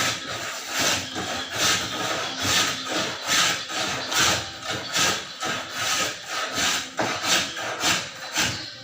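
Hand saw cutting wood in steady back-and-forth strokes, a little over one stroke a second.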